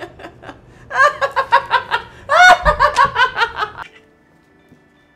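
A man's loud, gloating laugh: a few short chuckles, then two long runs of rapid 'ha' syllables, the second the loudest, stopping about four seconds in.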